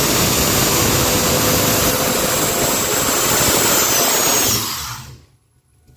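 Dodge Ram 2500's 8.0-litre V10 held at high revs in a burnout, the rear tyres spinning and smoking. About four and a half seconds in the noise dies away over half a second as the throttle is let off.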